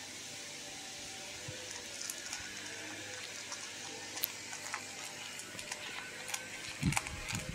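Shetland sheepdog puppy eating dry kibble from a bowl: scattered crisp crunches and clicks as she chews and noses the kibble, over a steady hiss, with a few low thumps near the end.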